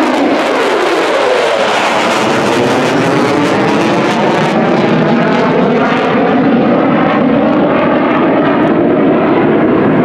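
Loud jet noise from an F-35 Lightning II fighter's F135 turbofan as it climbs out overhead just after takeoff. The pitch sweeps downward over the first couple of seconds as it passes, then settles to a steady noise as it heads away.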